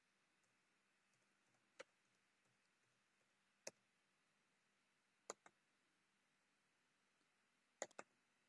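Near silence broken by a few faint, isolated clicks from a computer keyboard and mouse, spaced a second or two apart, with two quick clicks near the end.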